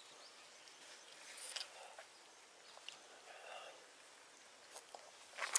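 Faint rustling of a paper tissue and scattered small clicks as a baby monkey is wiped and handled, with a sharper cluster of clicks near the end.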